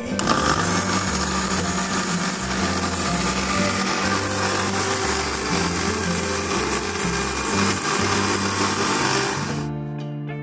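Electric mixer grinder running with its steel jar, a steady loud whir that starts at once and cuts off abruptly near the end.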